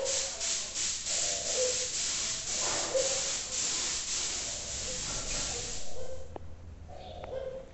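Compressed-air paint spray gun hissing in a run of short bursts as paint is laid onto a bicycle frame, stopping about six seconds in.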